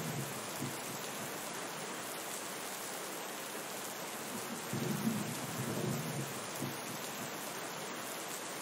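Steady rain falling as an even hiss, with a low rumble of thunder fading out in the first second and another rolling through about five seconds in.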